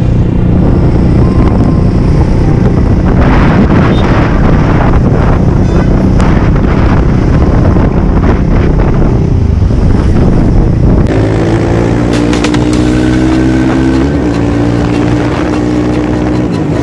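Motorcycle engine and wind rush while riding in traffic. About two-thirds of the way through, the engine note comes through clearly, climbing in pitch and stepping as the bike accelerates through the gears.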